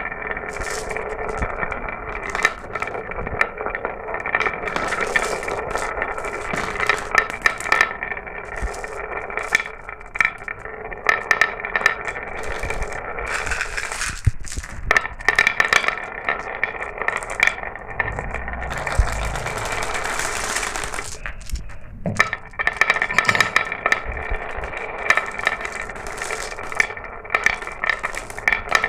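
Glass marbles rolling and clattering down a marble run track: a steady ringing roll with frequent sharp clicks as the marbles strike the track and one another. It eases off briefly twice, about halfway through and again about three quarters through.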